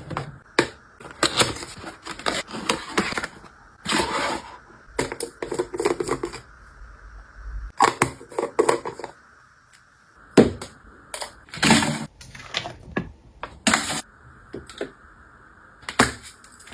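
Irregular clicks, taps and light knocks with bits of rustling, as toiletry bottles and plastic organizers are handled and set down, over a faint steady hum.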